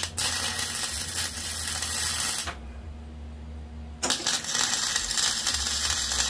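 Flux-core wire welder arc crackling as steel angle iron is tack welded: one weld of about two and a half seconds, a pause, then a second weld starting about four seconds in.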